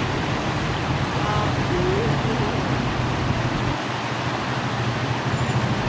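Steady rushing and splashing of a fountain jetting into a pond, with a low steady hum beneath and faint distant voices.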